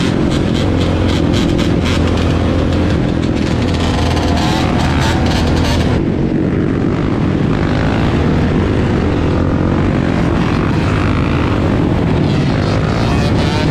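ATV and dirt bike engines running steadily at highway speed, heard from the seat of a moving quad in the middle of a large pack of riders.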